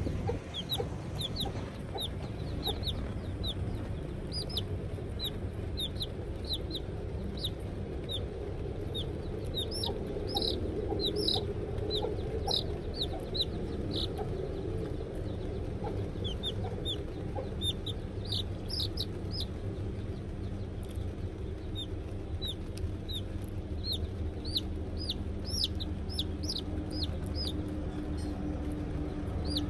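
Young chick peeping: short, high peeps repeated in irregular runs of a few a second, over low steady background noise.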